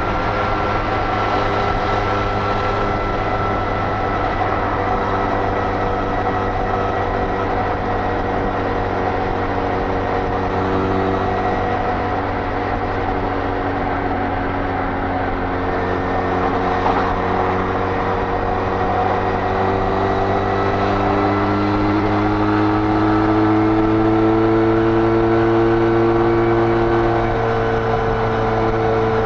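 Benelli Leoncino 500's parallel-twin engine running at high speed through its stock exhaust, with a steady rush of wind. The engine note holds steady, then rises a little in pitch and grows slightly louder about two-thirds of the way through.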